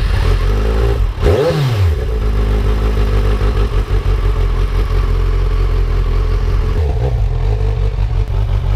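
Kawasaki Z1000SX inline-four engine idling loudly through aftermarket Toce three-port exhausts, with one quick throttle blip about a second and a half in and a smaller blip near the end.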